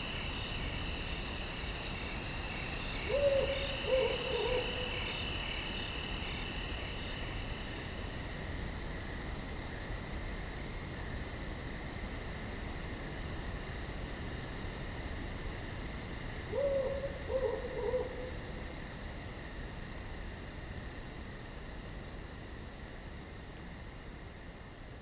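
An owl hooting twice, each time a short run of low hoots, over a steady high-pitched chorus of night crickets.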